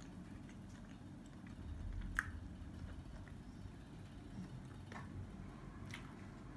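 Faint chewing of a mouthful of mini doughnut, with a sharp click about two seconds in and a few soft ticks later.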